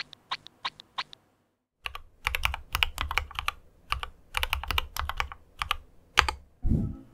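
Typing on a keyboard: a few keystrokes, a short pause, then a longer run of clicking keystrokes, ending in a low thud.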